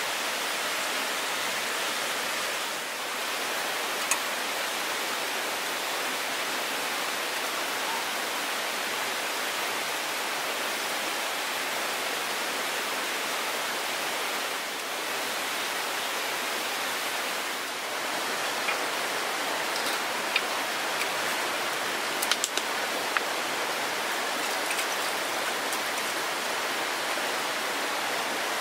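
Mountain stream water rushing steadily over rocks, an even hiss of running water, with a few faint clicks.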